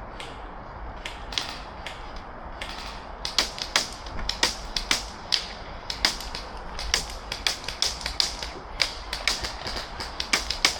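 Airsoft guns firing in scattered single shots and short strings of sharp clicks. The shooting becomes more frequent after the first few seconds.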